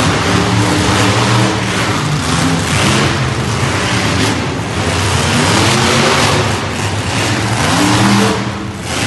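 Several monster truck engines revving hard, loud, their pitch climbing and dropping again and again as the trucks accelerate and back off.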